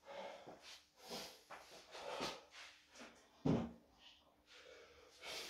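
Quiet scuffs and short handling noises of a weightlifter moving about and bending down as he gets ready for a set of box squats, with one louder short knock about three and a half seconds in.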